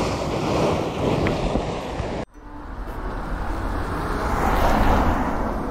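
Surf washing against a concrete-block seawall, with wind buffeting the microphone. A little over two seconds in, the sound cuts off abruptly and a rushing noise swells up and then eases off.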